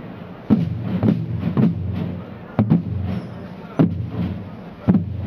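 Large rope-tensioned Landsknecht drums of a fanfare corps beating a slow marching cadence, heavy single strokes about once a second, with some closer pairs.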